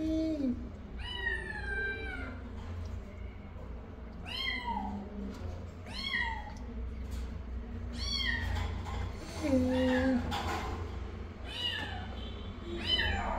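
Newborn kittens mewing again and again in high, falling cries, one about every one to two seconds, with a couple of lower calls among them, over a steady low hum.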